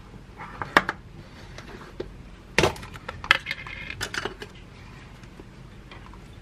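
Plastic food containers handled on a countertop: a series of sharp clicks and knocks, the loudest about two and a half seconds in, as the lid comes off a plastic tub of burrata cheese.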